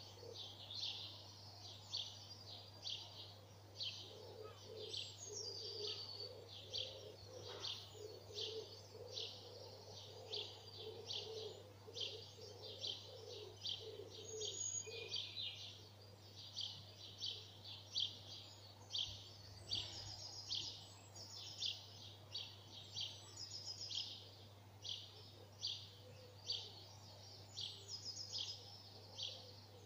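Dawn chorus of garden birds: short, high chirps repeated one to two times a second. A lower repeated call joins for several seconds in the first half, over a faint steady low hum.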